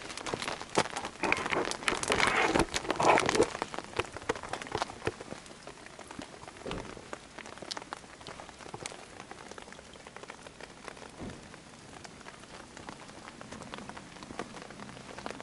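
Rain pattering, with many irregular drops ticking, and a louder rushing swell for a couple of seconds near the start.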